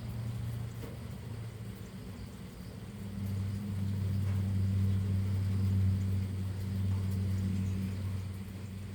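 A low, steady machine hum with a deep, even pitch. It grows louder about three seconds in and eases off near the end.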